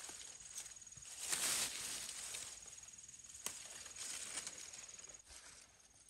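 Rustling of leaves and grass and scraping in soil as gloved hands dig out and pull up taro runners, with a short sharp click about three and a half seconds in.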